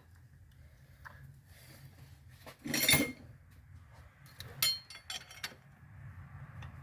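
Light metallic clinks of pliers and a steel roller lifter knocking against the engine's lifter bore as the lifter is worked loose, with one sharp clink about three seconds in and a quick cluster of clicks near five seconds. A low steady hum runs underneath.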